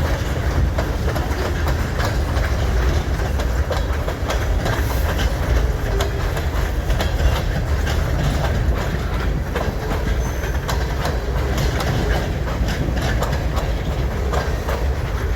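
Freight train cars rolling past close by: a steady low rumble of steel wheels on rail, with a constant run of clicks and clacks as the wheels cross rail joints.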